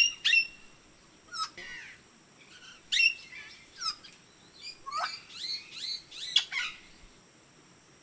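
Birds calling: a loose series of short, sharp chirps and whistles, many sliding in pitch, stopping about seven seconds in, over a faint steady high-pitched hiss.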